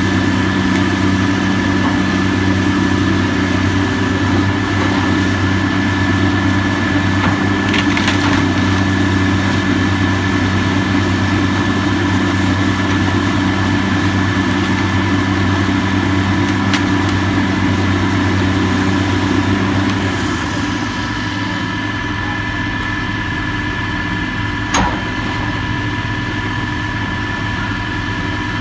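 Heavy equipment diesel engine running steadily at a low idle, with a few short knocks. The engine drops back and runs quieter about twenty seconds in.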